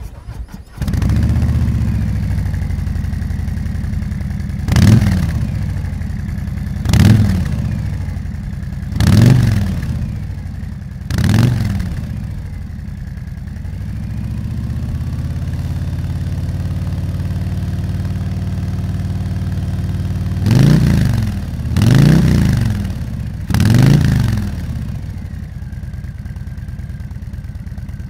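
Harley-Davidson Fat Boy 114's Milwaukee-Eight V-twin through Zard slip-on mufflers, starting up about a second in and settling into a steady idle. It is revved in four short throttle blips a couple of seconds apart, idles again, then gets three more blips and drops back to idle.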